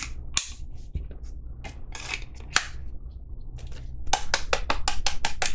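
Fixed-blade knife clicking in and out of its tight-retention sheath. A few scattered clicks come first, then from about four seconds in a fast run of sharp clicks, about six a second.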